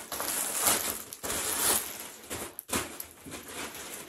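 Rustling and crinkling of plastic packaging being handled, in irregular bursts that are loudest in the first half.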